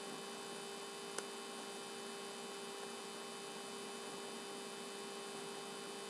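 Steady electrical hum from the recording, a set of constant tones at several pitches over faint hiss, with one small click about a second in.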